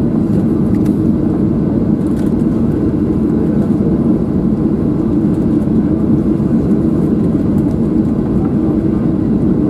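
Steady cabin noise of a Boeing 737-700 taxiing after landing: the CFM56-7B engines at taxi idle over a low rumble, heard from inside the cabin by the wing.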